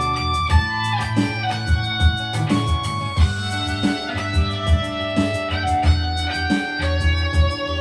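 Instrumental music with a steady beat and held, plucked-sounding notes.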